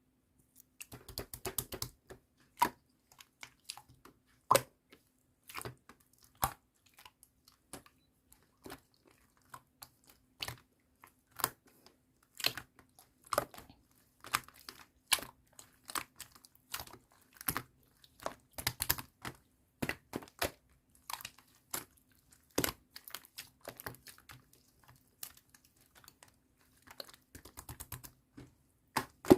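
Thick clay-mixed slime being squished and pressed by hand, giving irregular sharp clicking pops and crackles, sometimes in quick clusters.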